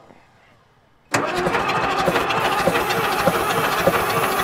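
Case 1896 tractor's diesel engine being cranked over by its electric starter on jump boxes, without catching. The cranking starts abruptly about a second in, with an even beat of compression strokes about three a second, and stops right at the end.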